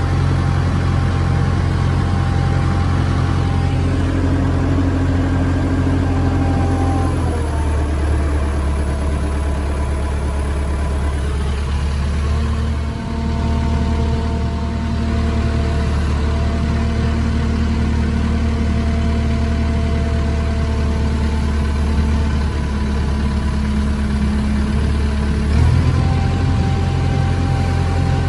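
JCB 3CX backhoe's diesel engine running steadily while its hydraulics work the backhoe boom and dipper. About seven seconds in the engine note drops as it lugs under hydraulic load, holds there, and picks back up near the end.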